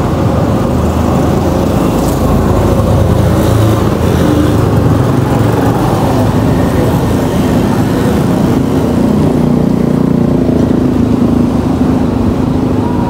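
Steady, loud motor-vehicle engine and road noise, a dense low rumble with a faint engine tone coming in during the second half.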